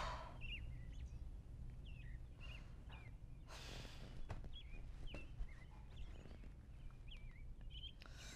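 A woman's heavy sigh right at the start and another breathy exhale about three and a half seconds in, over faint, repeated short bird chirps.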